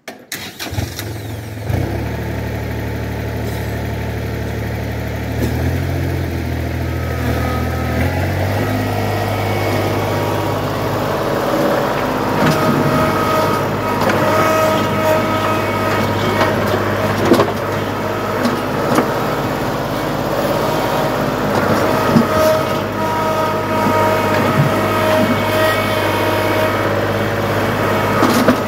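Kubota L3901 tractor's three-cylinder diesel engine running, its speed shifting a few seconds in and then holding steady. A front-loader hydraulic whine comes and goes as the stump bucket digs and curls, with occasional knocks and scrapes of the bucket teeth in rocky dirt.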